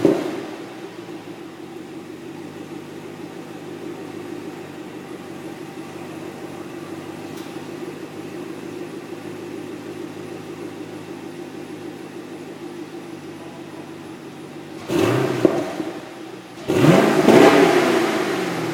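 Chevrolet Camaro 6.2-litre V8 exhaust idling steadily, then revved twice: a short blip about fifteen seconds in and a bigger rev a second and a half later whose pitch falls back toward idle.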